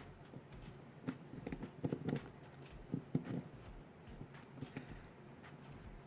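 Lock pick and tension wrench working in the keyway of a Kasp 14040 padlock: a scatter of light, irregular metal clicks and taps as the short hook probes the pins.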